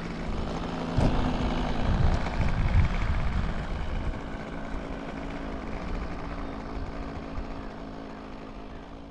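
OS 25FX two-stroke glow engine of an RC model airplane running steadily at low throttle while the plane taxis, fading out near the end.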